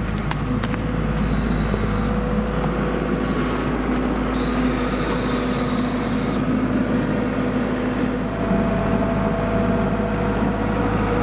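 Engine running steadily; about eight seconds in its note climbs a little and it gets louder.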